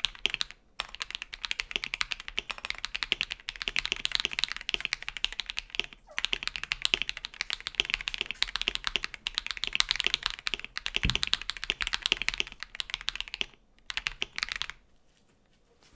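Fast typing on a KBD67 Lite mechanical keyboard fitted with stock, unlubed Akko CS Radiant Red linear switches: a dense run of keystroke clacks with a few short pauses and one deeper knock partway through. The typing stops near the end.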